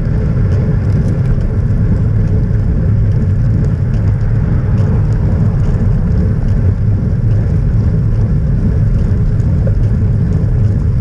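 Steady wind and road rumble on a bike-mounted camera's microphone while the road bike rides along tarmac: a loud, low, even roar without pauses.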